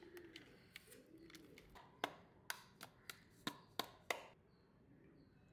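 Hands handling a plastic instant-noodle packet and small plastic spice jars: soft crinkling of the packet, then about seven sharp clicks and knocks of the jars in the hands over roughly two seconds.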